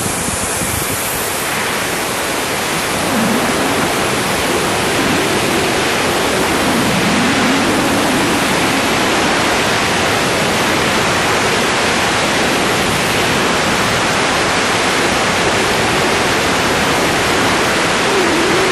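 Loud, steady rush of wind over the microphone of a camera worn during a wingsuit flight, growing a little louder about three seconds in.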